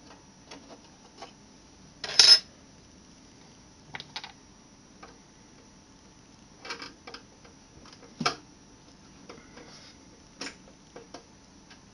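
Scattered clicks and knocks of metal hardware being handled inside a computer case, with a louder brief clatter about two seconds in and a sharp knock around eight seconds in.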